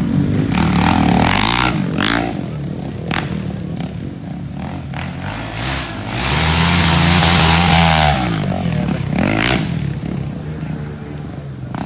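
Off-road dirt bike engines revving as riders work through the dirt track, the engine note rising and falling with the throttle. The loudest stretch is a couple of seconds a little past the middle, where a bike holds high revs.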